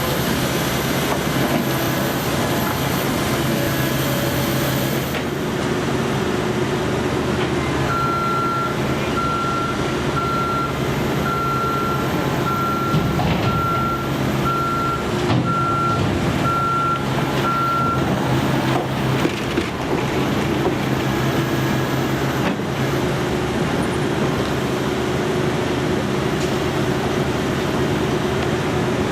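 Heavy construction vehicle's engine running steadily, with its reversing alarm beeping about once a second for about ten seconds from about a quarter of the way in.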